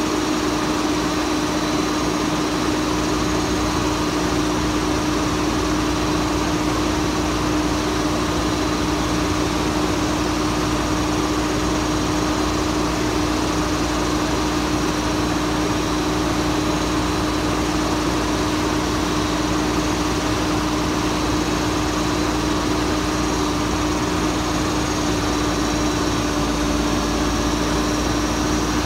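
Diesel engine of a Mack Granite garbage truck running steadily with a constant drone, its pitch sagging slightly near the end as the truck's crane starts lifting a load.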